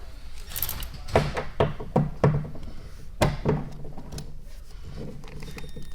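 Irregular knocks and clunks of hand tools against metal while a car seat is being unbolted.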